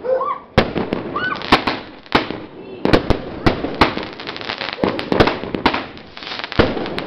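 Fireworks going off in quick succession: aerial shells bursting with sharp bangs and cracks, about two a second, with crackling in between.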